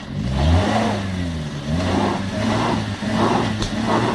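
Off-road 4x4 engine revving up, then held at steady revs while the tyres spin and churn the ground in pulses about every half-second: the wheels are digging in rather than gaining grip.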